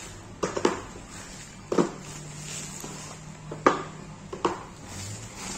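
Cardboard ink cartridge boxes being set down on a wooden table, with about five sharp knocks spread irregularly over four seconds. The loudest knock comes a little past halfway.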